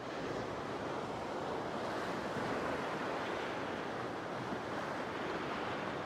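Rough sea surf breaking and washing around rocks on a rocky shore, a steady roar of churning water.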